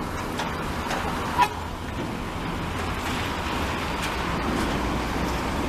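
Scania K360iB coach's diesel engine running low and steady as the bus pulls away, with a brief sharp blip about a second and a half in.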